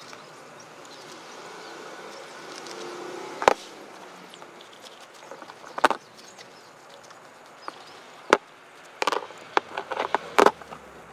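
Sharp metallic clicks and knocks as small derailleur parts and a steel pick tool strike each other and the metal work tray: single taps about 3.5, 6 and 8 seconds in, then a quick cluster of taps near the end. Soft rag rustling builds before the first click.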